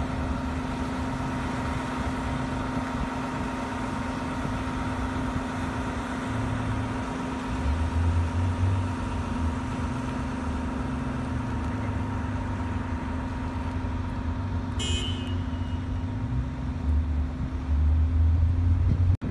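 Steady outdoor street noise with a constant engine-like hum, wind buffeting the microphone in gusts, and a brief high squeal about fifteen seconds in.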